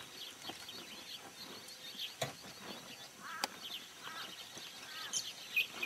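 Birds calling in the bush, many short high chirps overlapping, with a few faint sharp clicks.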